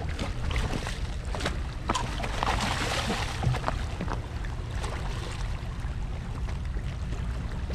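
Hooked striped bass thrashing and splashing at the water's surface, loudest about two to three seconds in, over a steady low rumble with a few sharp clicks.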